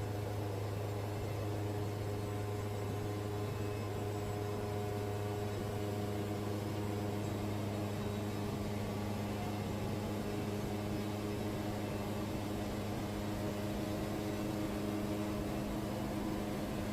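Wood-Mizer band sawmill running steadily through a 3/4-inch cut in a cypress log: an even, unchanging machine hum.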